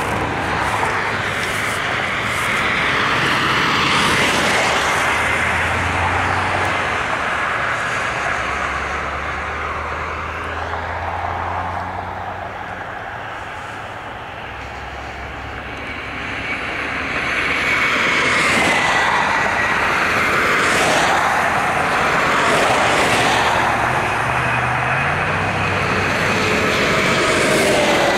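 Road and wind noise of a moving vehicle, rising and falling in loudness, with faint whining tones that slide down in pitch in the second half.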